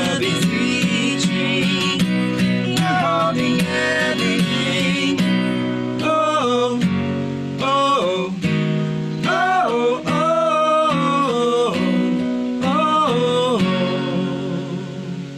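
A worship song sung to a strummed acoustic guitar. The voice sings a few long held notes in the second half, and the song ends on a ringing guitar chord that fades out near the end.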